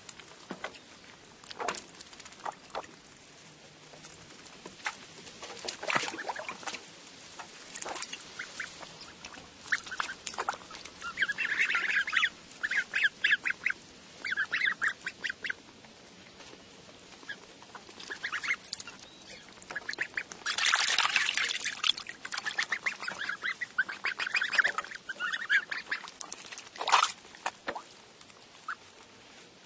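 Goslings cheeping: scattered single calls, then two long runs of rapid, high-pitched peeps, the first about a third of the way in and a louder one past the middle.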